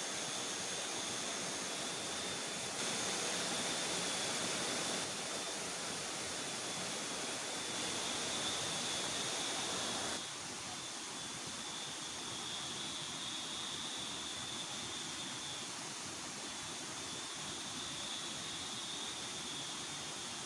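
Steady rushing noise of river water flowing, with a thin high whine running through it. The level jumps up and down abruptly a few times.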